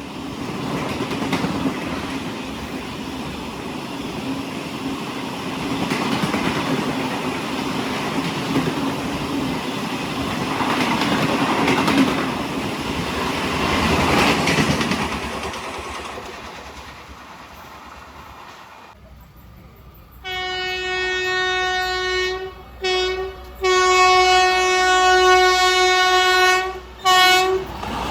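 An express train passes at speed with rail rumble and wheel clatter, dying away; then, about two-thirds of the way in, an Indian Railways WAP-7 electric locomotive's horn sounds in several loud, steady blasts with brief breaks between them.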